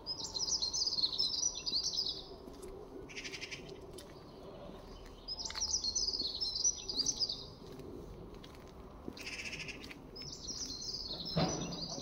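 A small songbird singing the same short, quick twittering phrase three times, about five seconds apart.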